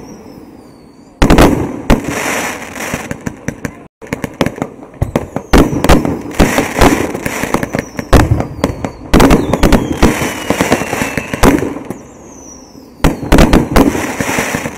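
Fireworks going off: repeated loud bangs with crackling, and a few whistling rockets sliding down in pitch. The sound drops out for an instant about four seconds in.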